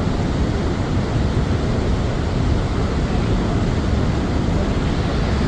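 Steady rushing roar of a large waterfall, even in level and heaviest in the low end.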